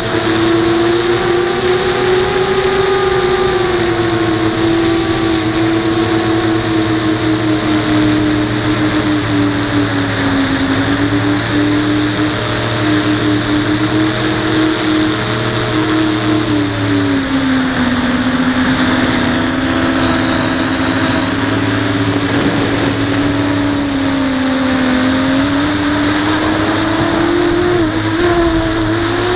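Brushless motors and 5-inch propellers of an FPV racing quadcopter (Brotherhobby Returner R5 motors), heard from the onboard camera as a steady loud whine. The pitch sags and climbs with the throttle, dropping about two-thirds of the way through and rising again near the end.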